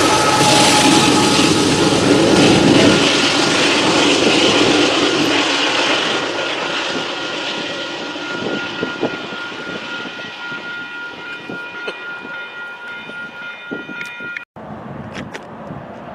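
A freight train's trailing diesel locomotive and loaded coal hoppers pass at a grade crossing, the wheel rumble and clatter fading away over the first several seconds. The crossing's warning bell keeps up a steady ringing tone until the sound cuts off abruptly near the end, followed by a few faint clicks.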